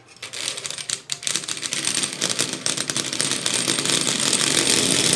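Electric motor and gears of an O gauge tinplate toy train's motor truck running on the track, a fast rattling buzz that starts suddenly and gets louder over the first few seconds before holding steady.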